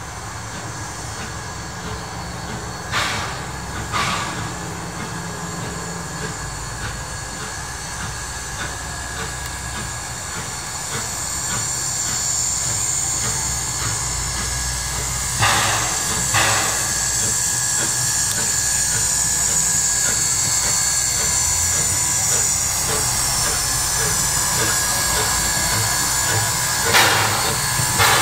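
Steam locomotive No. 1 moving slowly closer, a steady rumble and hiss of steam that grows louder about a third of the way in. Three times, a pair of short sharp sounds about a second apart stands out above it.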